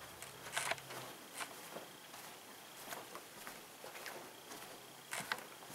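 Soft, irregular footsteps and handling knocks of someone walking with a handheld camera along a carpeted aisle, about one a second, over a faint steady high-pitched tone.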